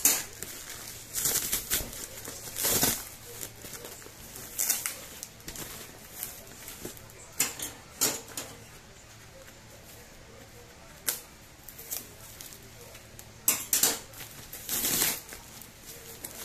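Packing tape and cardboard being ripped off a heavily taped shipping box by hand, in irregular tearing bursts with short pauses between them.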